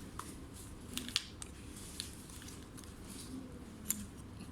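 About five small, sharp clicks and taps spread across a few seconds, the loudest a little after one second in and just before four seconds in: laptop parts and small tools being handled during a memory and SSD upgrade.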